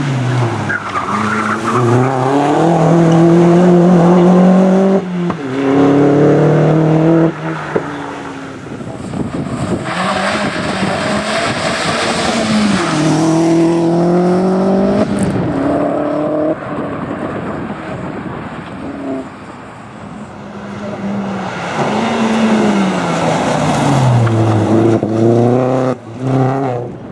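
Opel Astra OPC race car engine driven hard, the revs climbing and dropping back again and again through gear changes and lifts. A stretch of hissing noise comes in around the middle.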